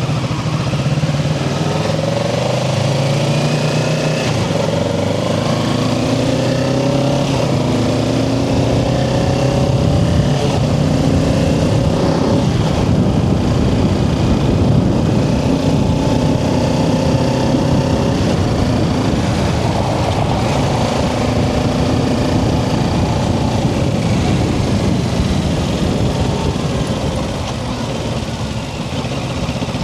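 Kawasaki Ninja 650's parallel-twin engine idling briefly, then pulling away and accelerating through several gear changes, its pitch rising in steps before settling into steady cruising.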